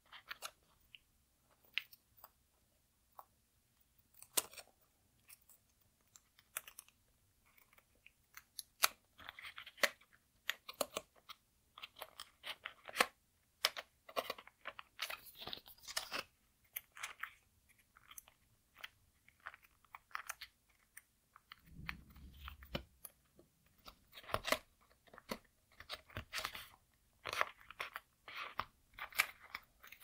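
Folded paper units of a modular origami cube being handled and worked with a plastic telephone card as a paper sticker unit is fitted in: an irregular run of small crisp clicks and crackly paper rustles. A dull low thump comes a little past the middle.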